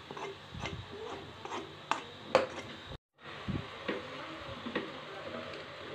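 A spoon scraping and clicking against a pressure cooker pot as fried shallots, curry leaves and dried chillies are stirred into chopped tender jackfruit, in irregular strokes. The sound cuts out briefly about three seconds in.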